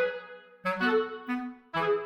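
Background instrumental music: a slow melody of single pitched notes, each fading away after it starts.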